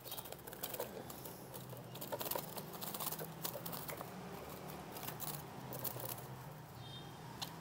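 Hands working inside a bamboo birdcage to catch a female white-rumped shama: a rapid scatter of clicks and rattles against the cage bars, mixed with the bird's wings fluttering.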